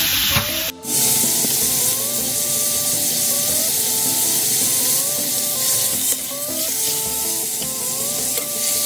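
Beef shank searing in hot oil with garlic and ginger in a stainless steel wok over medium heat: a steady sizzle that fills in about a second in, with a metal spatula now and then scraping the wok.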